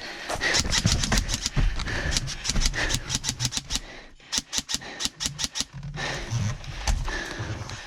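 Airsoft rifle firing on full auto in rapid bursts of sharp cracks. One long string runs for about three seconds, then after a short gap a second burst lasts just over a second.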